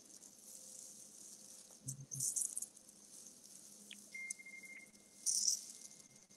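Soft rustling and handling noise close to the microphone, in two short bursts about two seconds in and again near the end, with a soft knock at the first burst. Under it runs a steady hiss, and a faint thin whine comes in from about four seconds in.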